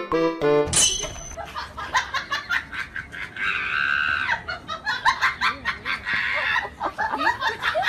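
A few notes of a tinkly tune, then from about a second in, people laughing loudly over one another.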